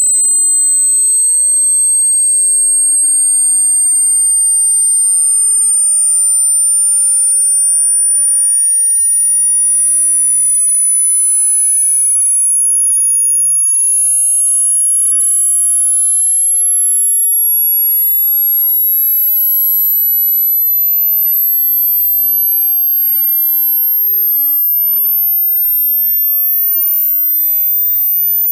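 Synthetic sine-wave test tone for headphone treble extension: a single very high, pure tone held at a steady level and climbing slowly and smoothly in pitch, sweeping toward the upper limit of human hearing.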